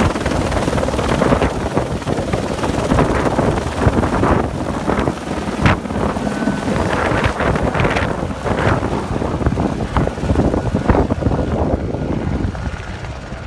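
AS355 F1 twin-engine helicopter running after take-off: a dense, loud rotor and turbine noise with wind buffeting the microphone, easing off a little near the end as it moves away.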